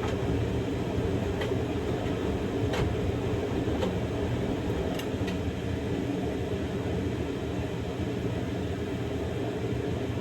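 Samsung Grande washing machine running a quick-wash cycle with a padded jacket inside: a steady drum rumble and motor hum, with a few light clicks in the first half.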